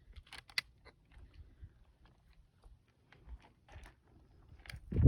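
Small clicks and rustles of a Beeman Commodore .25-calibre regulated air rifle being handled, then about five seconds in a single loud, low thump: the rifle firing.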